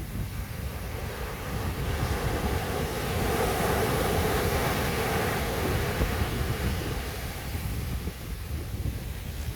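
Sea waves on a beach: one wave swells and washes in about midway, then fades, over a steady low rumble of wind on the microphone.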